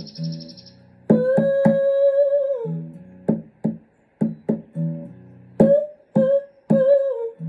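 Acoustic guitar playing chords, punctuated by sharp percussive hits, under a wordless melody line: one long held note that slides down, then a shorter wavering phrase near the end.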